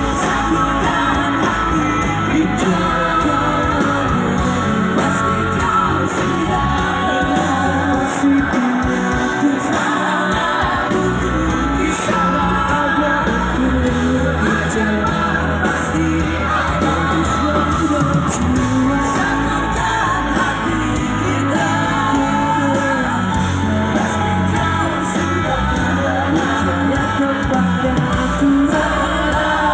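Rock band playing live, with voices singing over the music.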